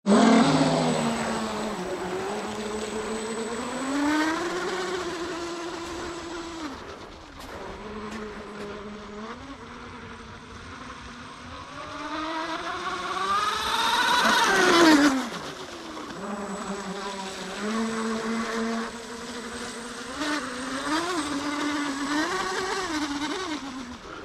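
Twin high-revving brushless electric motors of a small radio-controlled catamaran speedboat, running with a whine that rises and falls in pitch with the throttle. About 14 seconds in it comes closest and is loudest, its pitch dropping sharply as it passes.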